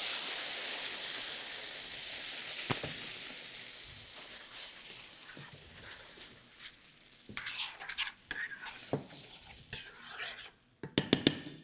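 Tomato sauce sizzling as it hits a hot frying pan of softened onion and garlic, the sizzle dying down over the first several seconds. Then a spoon stirring in the pan, with short scrapes and light knocks against the pan.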